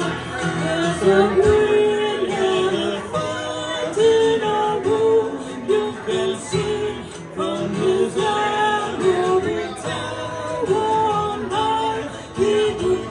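Live acoustic duo: a woman singing a melody into a microphone over acoustic guitar accompaniment.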